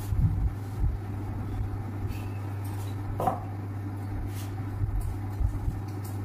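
Whiteboard duster wiping marker writing off a whiteboard: soft rubbing strokes with a few light knocks against the board, over a steady low hum.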